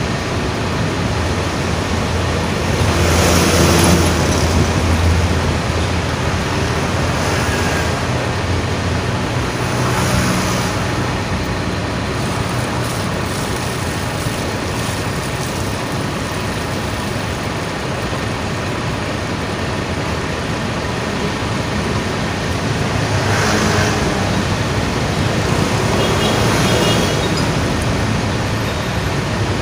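Steady road traffic noise with an engine hum, swelling louder twice as vehicles pass, once a few seconds in and again near the end.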